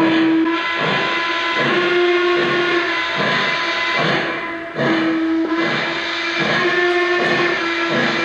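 Lionel Legacy N&W Y6b model steam locomotive's sound system blowing its steam whistle in long, swelling and fading blasts. Under the whistle run steady rhythmic steam chuffs, a little under twice a second.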